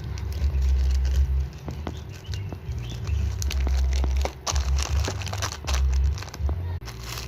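Yellow squishy toy being squeezed over and over close to the microphone: irregular crinkling and crackling with low muffled thumps.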